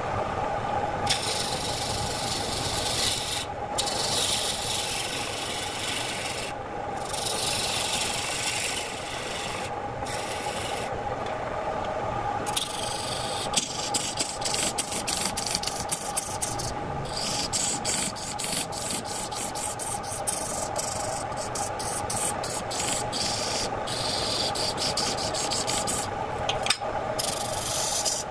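Electric wood lathe running with a steady hum while a turning tool cuts a spinning redwood blank, making a coarse scraping hiss. The hiss comes in passes a few seconds long with short breaks between them, and from about halfway on it is broken up by rapid clicks.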